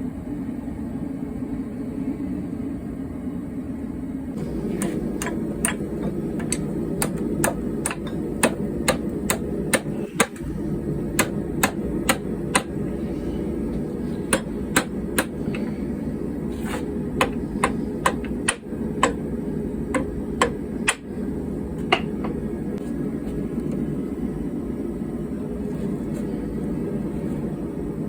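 Hand hammer striking hot car-spring steel on an anvil: a few dozen sharp, ringing blows in short runs of about two a second, with brief pauses between runs. The blows start a few seconds in and stop well before the end, over a steady low roar.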